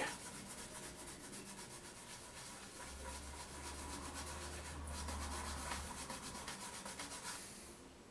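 A cloth rubbed briskly back and forth over the ABS plastic casing of a GPO 746 telephone, the acetone on it dissolving the faded surface layer to bring back the grey colour. It is a soft, quick, repeated rubbing that stops shortly before the end.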